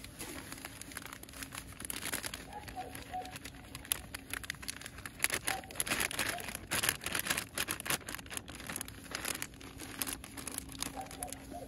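Plastic bag crinkling and rustling in irregular bursts as dry groundbait is portioned into it, busiest in the middle.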